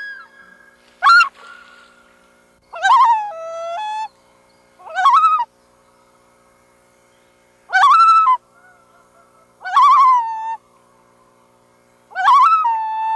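Loon calling, a series of about six short calls, several of them stepping or sliding down in pitch.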